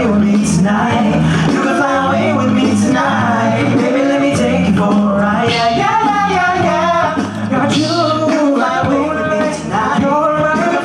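Male a cappella group singing in harmony without instruments, a low sung bass line holding steady notes under the higher voices.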